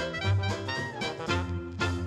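Background music: swing-style jazz with brass instruments and a steady beat.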